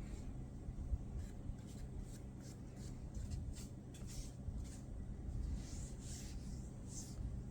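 A cloth being wiped over the monitor's screen in short back-and-forth strokes, a soft swish with each stroke, about two or three a second.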